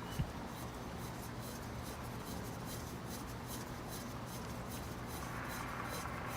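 Hands turning a new spin-on oil filter onto its threaded mount: faint rubbing and light scratchy ticks over a steady low hum, with a small knock just after the start.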